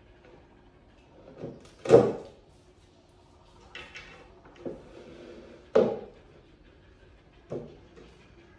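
Wooden knocks from a small round wooden bookshelf being handled during assembly: five separate knocks, the loudest about two seconds in.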